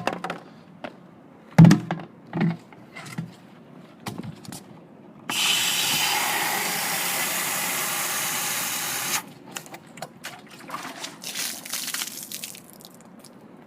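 A water tap running for about four seconds, starting and stopping abruptly, as a container is filled with water for the birds. Before it come a loud thump and a few knocks, and light clatters of handling follow.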